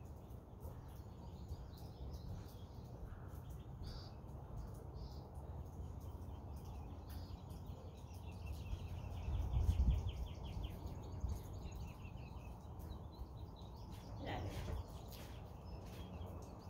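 Small birds chirping and trilling repeatedly over a steady low background rumble, with a louder low rumble about ten seconds in.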